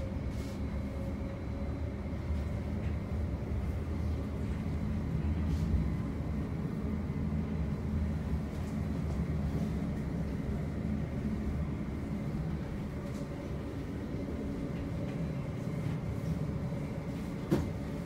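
Inside a moving tram: a steady low rolling rumble with a faint steady whine above it. A single sharp click sounds near the end.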